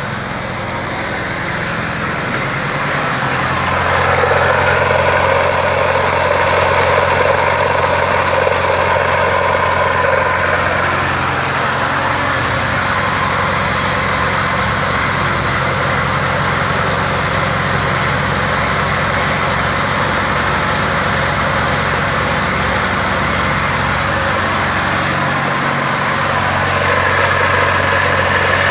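Car engine idling with the electric radiator cooling fan running. The whirring swells about four seconds in and then holds steady.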